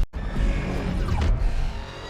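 Monsterverse Mechagodzilla sound effect: a dense mechanical rumble mixed with music that starts abruptly after a cut and fades over the last half second, with a faint high whine near the end.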